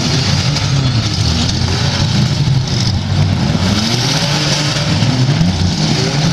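Several demolition-derby pickup truck engines running loud at once, revving hard with a few rising surges in pitch around the middle as the trucks push against each other.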